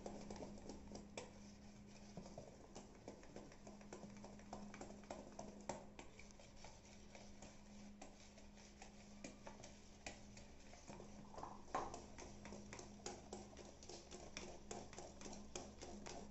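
Faint hand-stirring of cake batter in a bowl, a utensil clicking and scraping against the bowl many times in an uneven rhythm, over a low steady hum.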